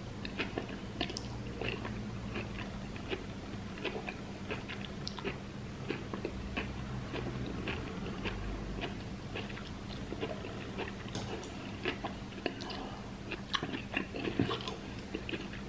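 A person chewing a mouthful of raw zucchini noodles (zoodles) close to the microphone, with irregular small crunches and wet mouth clicks.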